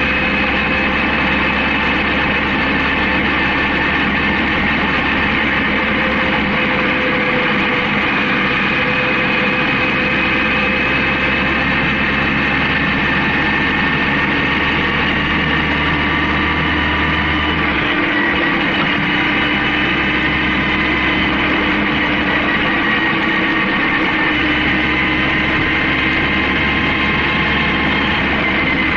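Honda CB750K's air-cooled inline-four engine running steadily on the move, its pitch drifting slowly up and down, with the low rumble briefly dropping away about two-thirds of the way through.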